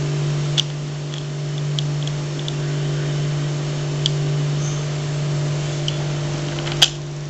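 A steady low machine hum with a few short clicks, the loudest just before the end.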